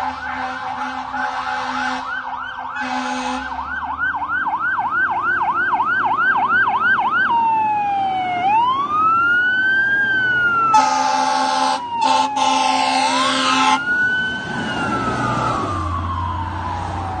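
A fire rescue truck's siren going in a fast yelp, changing to a slow rising-and-falling wail about seven seconds in. Two long horn blasts come near the middle, and the truck's engine swells as it passes close by.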